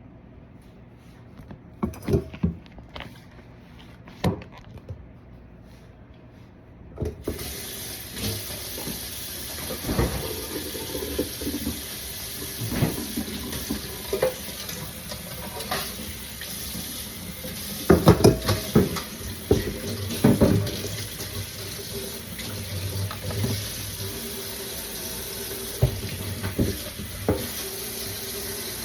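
A few knocks and clunks, then about seven seconds in a tap is turned on and water runs steadily into a sink, with more knocks and clatter over the running water.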